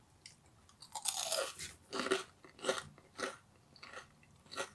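Someone biting into and chewing a crispy fried carrot stick coated in breadcrumbs and sesame seeds. There is a longer crunchy bite about a second in, then five or six short chewing crunches about half a second apart.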